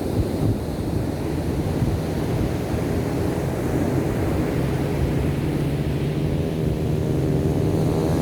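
Ocean surf washing, with wind buffeting the microphone. From about halfway in, a steady engine hum rises and grows louder toward the end.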